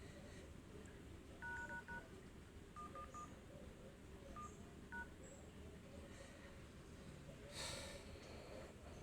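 Lenovo A6010 phone's dialer playing faint keypad tones as keys are tapped: a quick run of four short beeps, then three, then two single beeps, typical of keying in a service code to open the phone's hardware test menu. A short scuff of handling noise near the end.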